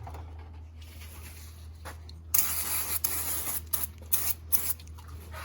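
Aerosol brake cleaner hissing out of the can onto the pinion gear: one long spray starting about two seconds in, then several short spurts.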